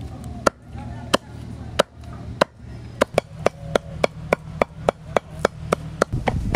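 A large knife chopping boneless chicken breast on a wooden chopping block to mince it. A few separate chops come first, then about halfway through it settles into quick, even chopping at about four chops a second.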